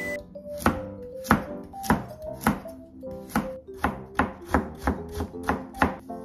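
A kitchen knife chopping burdock root on a plastic cutting board: about a dozen sharp knife strikes at an uneven pace, roughly two a second. Light background music plays underneath.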